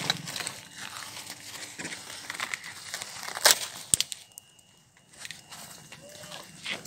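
Crinkling, rustling handling noise from things being moved about at the back of a car, with a sharp knock about three and a half seconds in and a fainter one half a second later.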